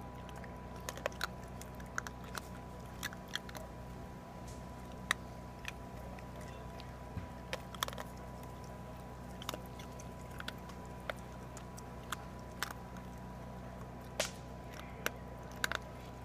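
Young raccoons chewing and crunching dry kibble, with irregular sharp crunches and clicks spaced a fraction of a second to a couple of seconds apart.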